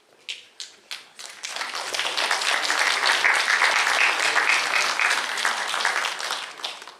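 Audience applause: a few scattered claps at first, then the whole hall joins in with dense clapping for about five seconds before it fades out near the end.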